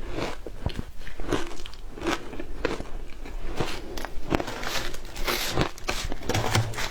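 Frozen matcha ice being bitten and chewed, with a string of sharp, brittle crunches coming a bit more than once a second.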